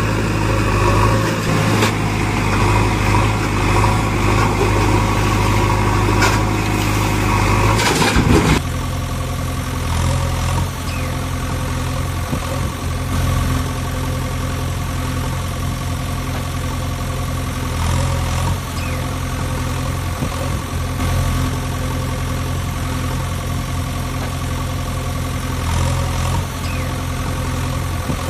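Engine idling steadily, an engine sound for a toy backhoe loader; about eight seconds in it switches abruptly to a lower, steadier drone.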